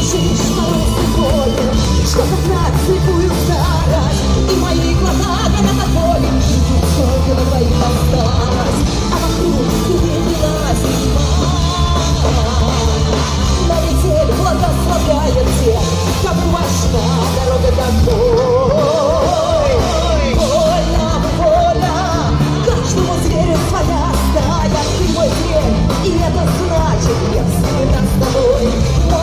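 Rock band playing live, with drums, bass and guitars and a wavering lead melody on top.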